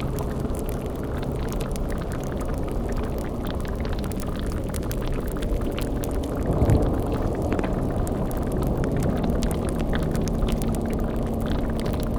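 Layered spooky ambience: a thick, low bubbling like a boiling cauldron, with scattered crackles like a fire, over a low hum. A brief swell of deeper rumble comes about seven seconds in.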